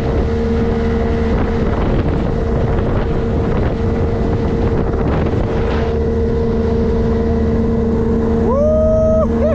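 Motorboat engine running steadily under way, a constant drone with wind buffeting the microphone. Near the end a short pitched call rises and holds for under a second.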